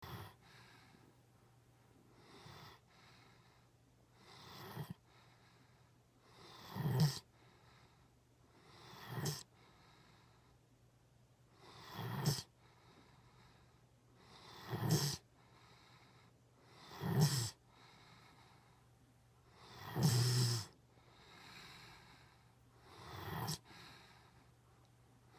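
Rhythmic snoring, about one snore every two to three seconds, each swelling to a loud peak and then cutting off sharply.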